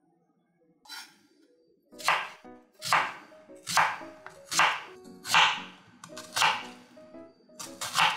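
Chef's knife slicing an onion on a wooden cutting board: about eight even cuts a little under a second apart, starting about two seconds in, each ending with the blade knocking the board.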